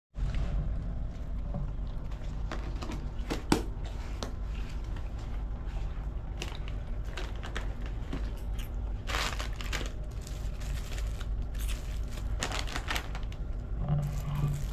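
Steady low drone of the ferry's engines through the cabin, with plastic bags crinkling and light clicks of a spoon in a cup of noodles.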